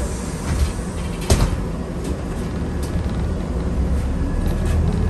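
City bus in motion: a steady low rumble with scattered knocks and rattles, and one sharp knock about a second in. Near the end a whine starts to rise and the rumble grows louder.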